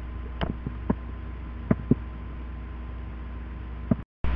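Steady electrical hum and hiss from a low-quality recording, with a few short faint ticks scattered through it. The sound drops out completely for a moment near the end, then comes back louder and noisier.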